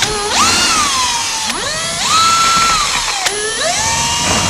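Cordless drill/driver backing out Phillips screws from a door panel. The motor whine climbs in pitch as the trigger is squeezed, holds, then drops as it slows, three times over, with a sharp click about three seconds in.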